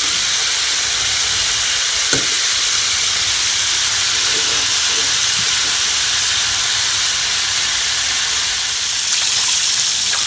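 Flour-coated red bream deep-frying in hot oil in a stainless steel saucepan: a steady sizzle that holds level throughout, with one light click about two seconds in.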